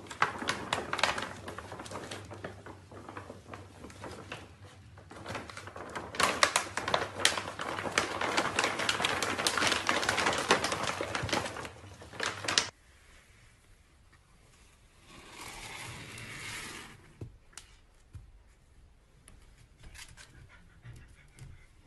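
An empty pet-food bag crinkling and rustling in quick crackly clicks as two puppies scramble in and around it. It stops suddenly about two-thirds through, leaving only faint rustles.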